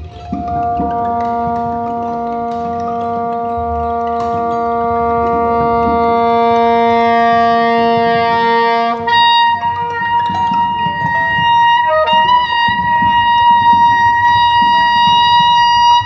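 Soprano saxophone holding one long low note that slowly swells in loudness. About nine seconds in it leaps to a high, sustained note that it holds to the end.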